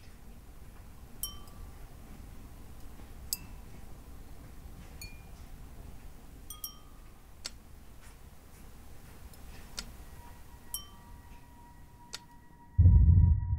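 Light chime-like clinks, about eight in all, each a bright tap with a short ringing tone, spaced a second or two apart over a low rumble. Near the end a steady high tone comes in and a loud low boom hits.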